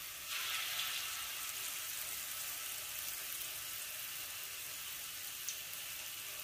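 Battered shrimp deep-frying in hot oil in a wok: a steady sizzle that swells a little about a third of a second in.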